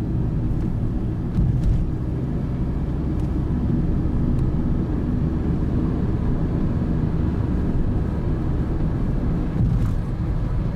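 Steady low rumble of a vehicle driving, engine and road noise with no change in pitch.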